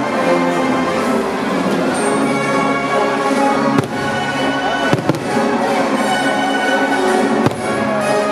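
Fireworks display: aerial shells bursting with sharp bangs, the sharpest about four, five and seven and a half seconds in, over continuous music with sustained tones.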